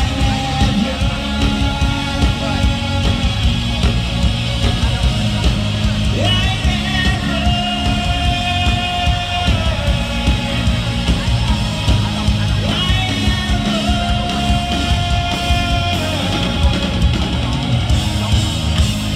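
Live rock band playing, with drums, electric guitars and bass under a lead vocal that twice glides up into a long held note, heard from within the audience.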